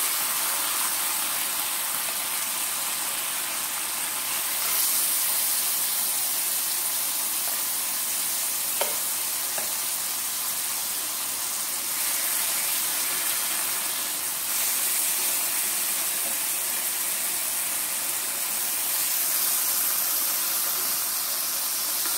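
Chicken thighs sizzling on a hot electric indoor grill, a steady hiss that grows a little louder about five seconds in. A couple of light clicks of metal tongs come about nine seconds in.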